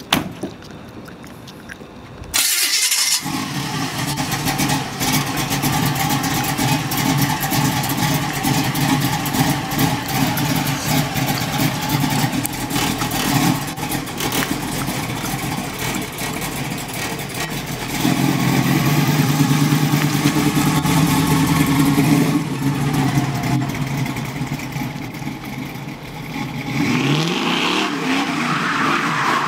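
Big-block V8 of a 1969 Chevrolet Camaro starting up about two seconds in, then running steadily. It gets louder for a few seconds past the middle and revs up in a rising sweep near the end as the car pulls away.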